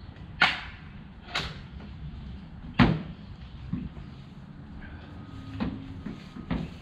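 Sharp knocks or clacks, three loud ones in the first three seconds and a few fainter ones after, over a low outdoor background hum.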